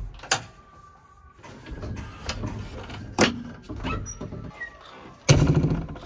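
Clicks and clunks of a JCB 3DX backhoe's cab fittings being worked by hand, as latches and hinged glass are opened and closed. The clicks come singly, a second or so apart, and a louder low rumble comes in near the end.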